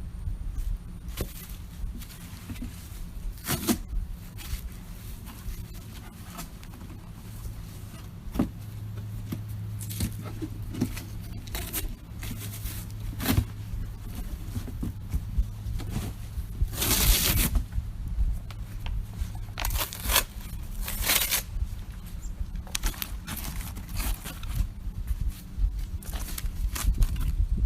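Wood campfire crackling, with scattered sharp pops and a louder burst of crackling a little past the middle. A low steady hum sits underneath for several seconds in the middle.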